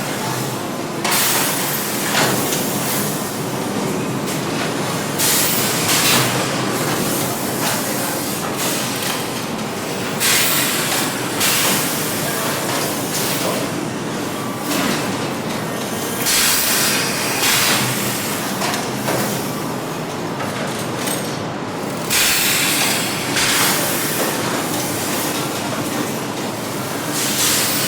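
Factory machinery running: a continuous mechanical din with louder bursts of hissing, clattering noise, often two in close succession, recurring every five or six seconds.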